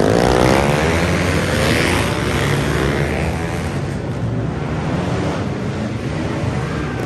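A pack of flat-track motorcycles launching off the start line together. Many engines rev up at once in the first second, then run hard in a steady mass of engine noise that eases a little after about four seconds as the field moves away around the track.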